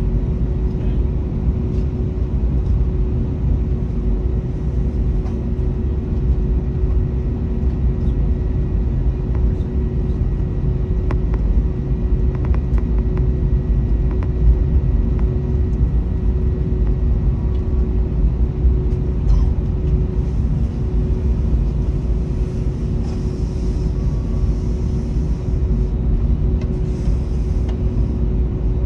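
Cabin noise of an Airbus A321neo taxiing, heard from a window seat: its Pratt & Whitney geared turbofans running at low taxi power give a steady low rumble with a constant hum on top.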